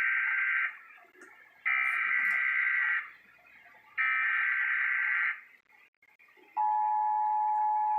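Emergency Alert System SAME header data bursts: the end of one burst, then two more buzzy digital bursts about 1.3 s long, two seconds apart. About 6.5 s in, the steady EAS two-tone attention signal (853 and 960 Hz) starts, announcing a new alert.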